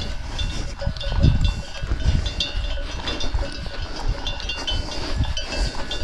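Bells on grazing livestock clinking and ringing irregularly, many small strikes overlapping, over a low gusty rumble on the microphone.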